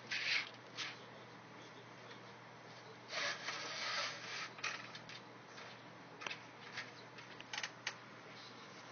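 A cat playing with a toy: scratching and rubbing in short bursts, with a longer stretch of rubbing about three seconds in and a few light clicks near the end.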